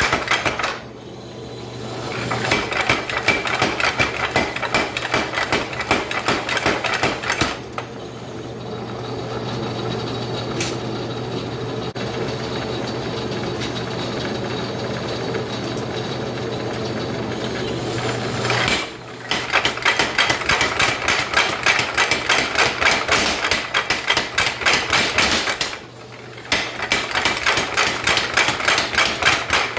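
Power hammer pounding through a flatter in runs of rapid, evenly spaced blows, stopping and starting three times, with a steady motor hum while the ram is idle.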